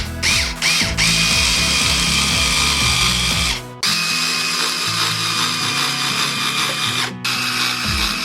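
Handheld power drill driving screws: a few short trigger blips that spin up and down, then long steady runs that stop abruptly twice. Background music underneath.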